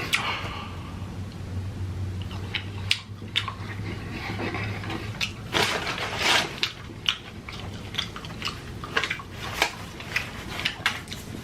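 Close-miked chewing of fried cheese curds: wet, irregular mouth clicks and smacks, with a low steady hum for the first few seconds.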